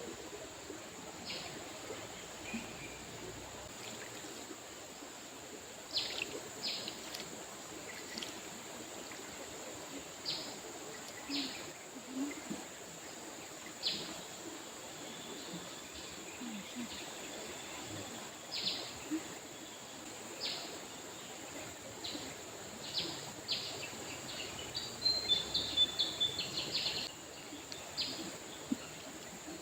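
Steady rush of river water, with birds giving short high chirps every second or two and a quick run of calls about two-thirds of the way through.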